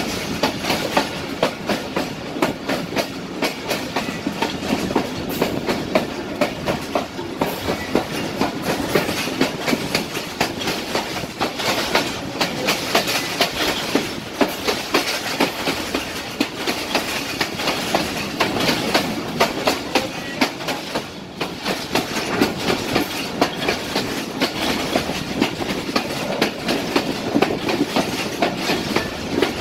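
Allama Iqbal Express passenger coach running along the track, heard from an open coach window: wheels clacking over rail joints again and again over a steady rumble.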